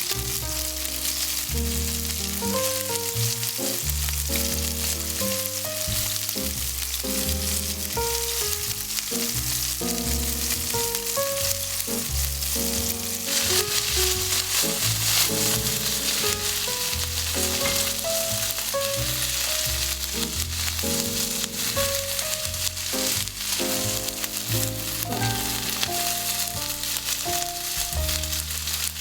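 Food sizzling as it fries in a pan, with a steady crackling hiss that grows louder about halfway through, over soft background music.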